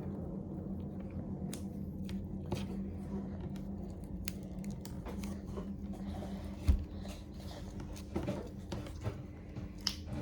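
Clear slime being kneaded and pulled by hand with chunks of cream blush in it: scattered small sticky clicks and pops over a steady low hum, with one thump about two-thirds of the way through.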